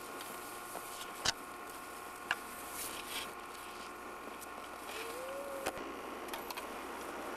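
A few sharp clicks and knocks of cross-country skis, poles and bindings being handled in snow, the loudest about a second in, over a steady hiss and hum of the recording.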